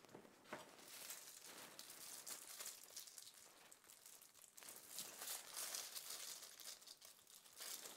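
Faint crinkling of plastic bags holding marinated beef as they are handled and lifted, in two spells: one starting about half a second in, another around five seconds in.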